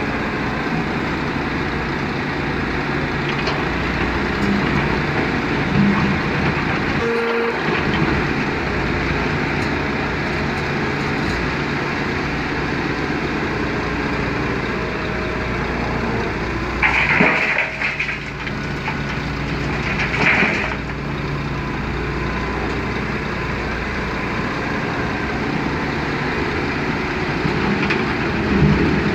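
Hitachi Zaxis 210 crawler excavator's diesel engine and hydraulics running steadily as it digs and swings to load a dump truck. About two-thirds of the way through there are two brief, louder rushes of noise, a few seconds apart.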